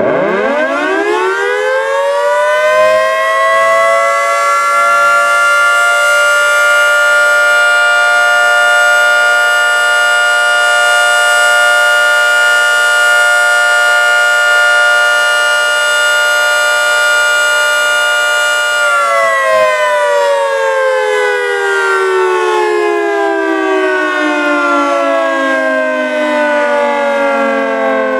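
Federal Signal 3T22B single-phase dual-tone outdoor warning siren sounding its Alert signal during a test. It spins up to a loud steady chord within about two seconds, holds it, and about 19 seconds in begins winding down with a steadily falling pitch.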